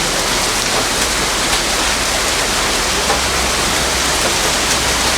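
Heavy rain pouring down, a loud steady hiss of dense rainfall and running water.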